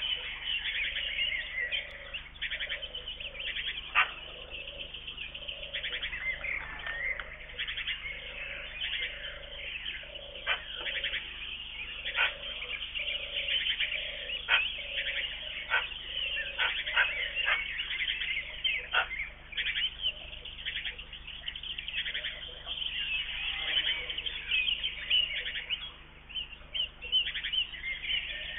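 Morning chorus of many wild songbirds chirping and singing. Under it a lower bird call repeats steadily, and there are a few sharp clicks.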